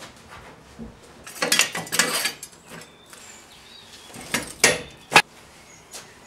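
Metal clanks and rattles of a floor jack and a steel jack stand being worked under the front of a pickup: a clattering burst about a second and a half in, another near four and a half seconds, then a single sharp knock.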